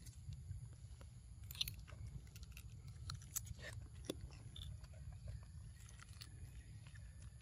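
A baby macaque biting and chewing a crisp green fruit, with scattered small crunches and clicks over a low, steady rumble.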